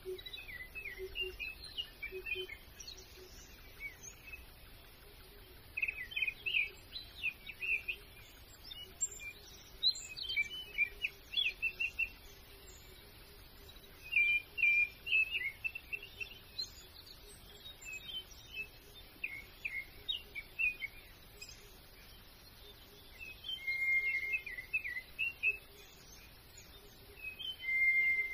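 Small birds chirping and singing in short, quick twittering phrases that come every few seconds, over a faint steady outdoor background.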